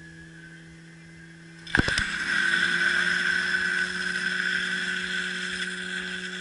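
Fire pump engine running steadily. About two seconds in, a few sharp knocks are followed by a loud, steady rushing hiss of water driven under pressure through the hoses to the nozzles, and the engine's note rises slightly under the load.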